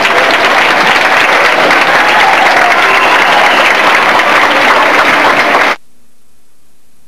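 Large audience applauding in a gymnasium, with band music faint beneath it. About six seconds in the sound cuts off suddenly to the steady hiss and faint low hum of blank videotape.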